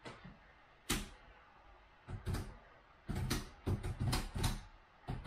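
Typing on a laptop keyboard: irregular clusters of sharp key clicks and taps with short pauses between them.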